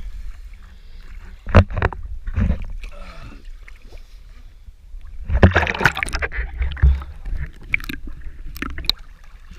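Water splashing and sloshing around a boat, with a few sharp knocks. A loud burst of splashing comes a little past halfway, and a steady low rumble runs underneath.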